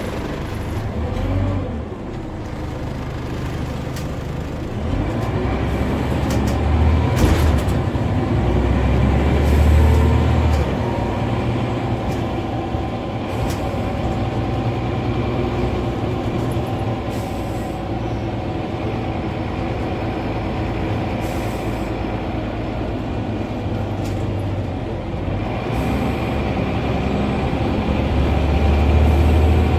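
Scania N94UB OmniCity single-decker bus heard from inside the saloon while under way: its nine-litre five-cylinder diesel running, with steady low road and body rumble. The engine note swells louder about seven to ten seconds in and again near the end.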